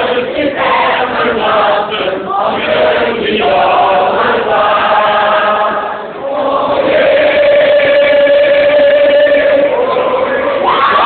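A large mixed group of men and women singing together in chorus; after a short dip about six seconds in, the voices hold one long note for several seconds.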